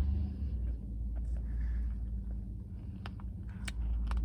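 A vehicle running nearby: a steady low rumble with a steady hum, and a few faint clicks.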